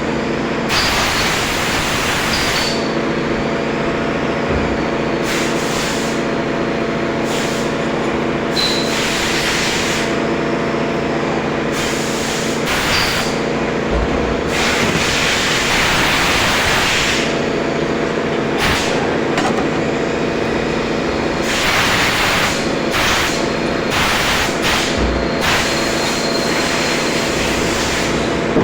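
CNC machine running: a steady multi-tone motor hum with hissing that comes and goes every second or two.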